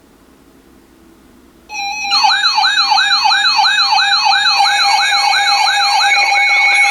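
Electronic siren-style alert tones cut in suddenly about two seconds in, after faint hiss. A steady tone runs under a rapidly repeating rising whoop, about three a second, with a faster wavering tone above.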